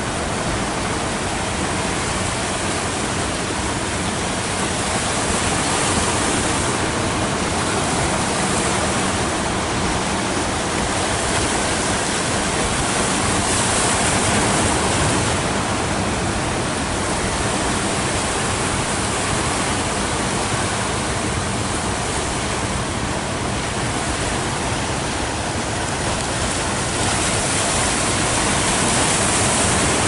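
Rough sea surf: waves breaking and washing up the beach in a steady rush of water noise that swells a little now and then.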